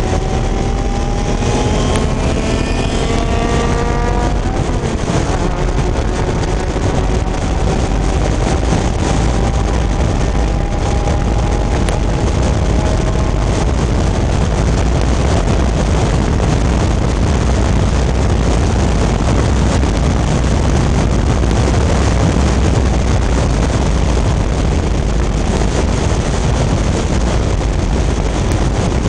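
Vintage Fiat race car engine at full throttle, heard on board. It revs up, drops in pitch at a gear change about four seconds in, and then climbs slowly through the next gear. Heavy wind noise on the microphone covers most of the rest.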